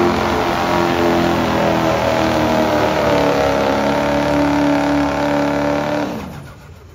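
Diesel pickup truck engine running hard under heavy load as it pulls a weight sled. About six seconds in, the engine note falls and dies away as the throttle comes off at the end of the pull.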